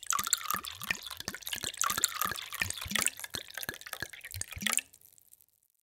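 Water poured in a thin stream into a glass, splashing and bubbling with many small plops. It stops suddenly about five seconds in.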